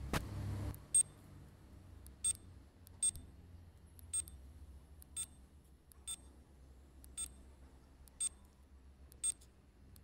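Handheld GNSS land meter giving short high beeps about once a second while it searches for satellite signal, over a low steady hum. A brief louder rustle in the first half-second.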